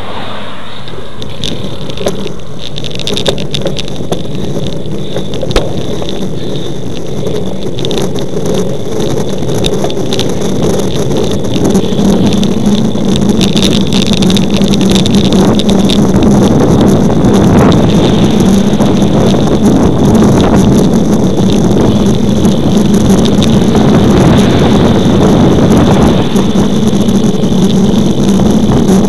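Wind rushing over the microphone of a camera on a moving road bicycle, with tyre and road noise. It grows louder about twelve seconds in as the bike picks up speed, and a few sharp knocks come from bumps in the road.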